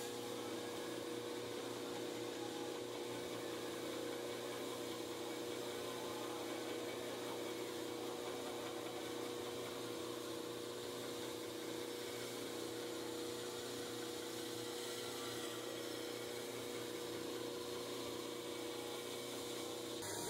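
KMG-style belt grinder driven by a Leeson electric motor running steadily, with a constant hum under an even hiss as the steel cleaver blade is ground against the belt.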